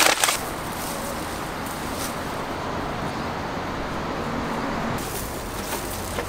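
A plastic food pouch crinkling briefly at the very start, then a steady rumbling background noise with no clear tones.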